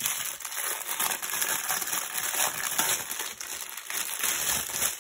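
Clear plastic bag crinkling as the small packets of diamond-painting drills inside are handled and pulled out, with small hard clicks from the drills shifting in their packets.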